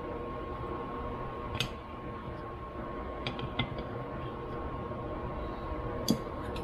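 Four or so light, sharp clicks of small metal carburetor parts being handled, over a steady background hum with a faint constant tone.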